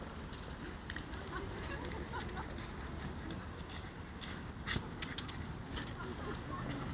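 Outdoor background with birds calling, broken by a scatter of sharp taps and knocks; the loudest is a pair of knocks about two-thirds of the way through.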